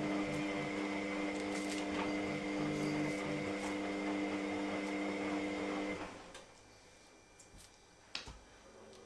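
A steady machine hum with a few fixed tones, which cuts off suddenly about six seconds in. Faint small clicks and rustles of an orange being peeled and pulled apart.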